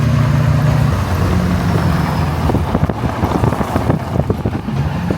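A vehicle driving over a rough road, heard from inside: a steady low engine hum, with a cluster of knocks and rattles from about two and a half seconds to nearly five seconds in as it jolts over bumps.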